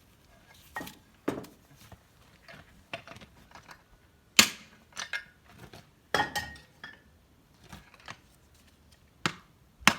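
Irregular metal knocks and clanks, about ten in all and unevenly spaced, from steel parts and tools being worked while taking the brake shoes off a Zetor 6711 tractor. The loudest comes about four seconds in, and a couple ring briefly.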